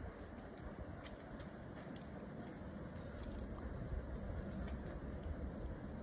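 Faint, steady outdoor background noise with a low rumble, and scattered light ticks throughout.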